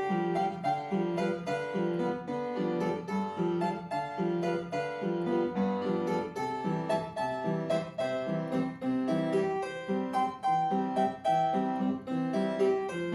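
Background music on a keyboard instrument, piano or harpsichord-like, playing a steady run of evenly paced notes.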